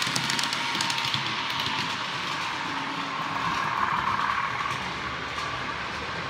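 Model trains running on the layout: a steady whirr of small motors and wheels on the rails, with a run of rapid clicks in the first second or two and a swell in the whirr a little past halfway.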